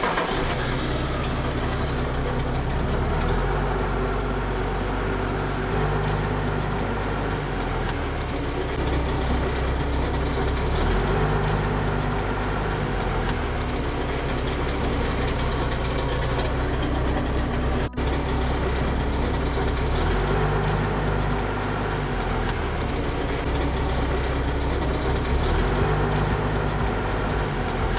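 Forklift engine running while the forklift drives, its low note rising and falling every few seconds. The sound breaks off for an instant about two-thirds of the way through.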